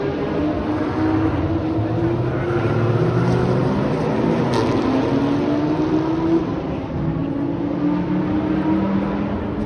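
Several cars' engines on a race circuit, overlapping, each rising steadily in pitch as it accelerates along the straight.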